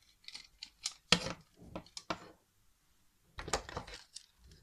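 Hard plastic toy figures being handled and set down on a wooden shelf: a scatter of light clicks and knocks, the sharpest about a second in and another cluster about three and a half seconds in.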